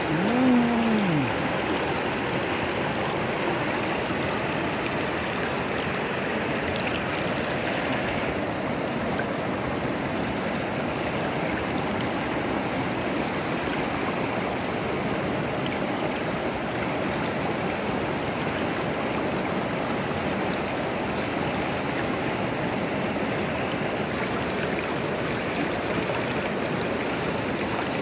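Shallow river rushing over rocks: a steady, even rush of water. Right at the start a man's voice gives one short hum that falls in pitch.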